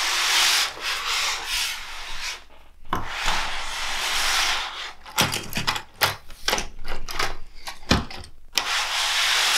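LEGO Hogwarts Express toy train pushed by hand, its plastic wheels rolling over plastic track and tabletop with a rasping noise in several long stretches. A run of sharp clicks and knocks between about five and eight seconds in.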